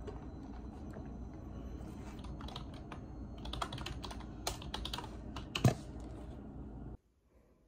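Typing on a computer keyboard: irregular keystroke clicks over a steady room hum, with one louder knock near the end. The sound then cuts off suddenly.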